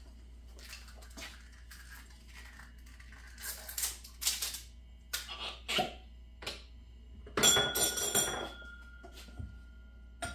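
Glass bottles and glassware being handled on a bar counter: scattered clinks, knocks and rustles. A louder cluster of glassy clatter comes about three-quarters of the way through, and a faint ring lingers after it.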